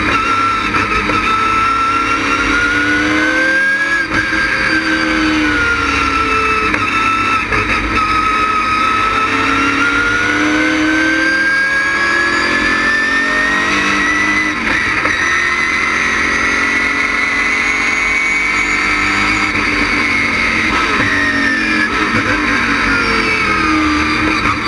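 LS6 V8 of a stock car with a racing cam, running hard at track speed. Its pitch climbs slowly for several seconds, holds, then drops back near the end as the car slows for a corner.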